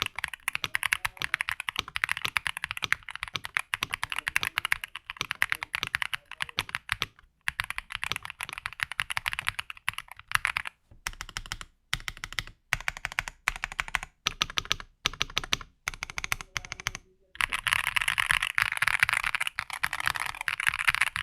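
Mechanical keyboard with Aflion Iceberg linear switches being typed on, a clean, clacky sound. Fast continuous typing, then slower separate key presses about halfway through, then fast typing again near the end.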